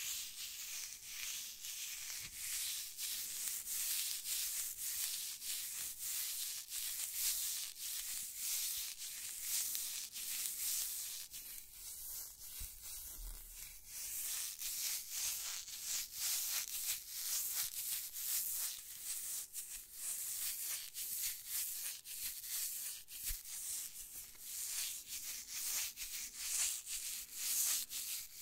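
Fingertips rubbing and crinkling right at the microphone: a dense, fast crackle of tiny rustles that eases off briefly about halfway through.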